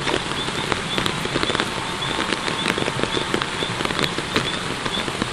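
Steady rain falling on the surrounding leaves and vegetation: an even hiss packed with dense, sharp ticks of drops landing close by.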